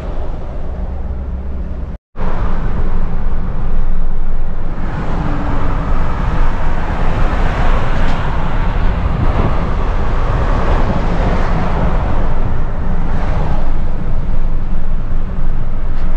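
Steady road and wind noise of a car driving at speed on the highway. It drops out for a moment about two seconds in, then comes back louder.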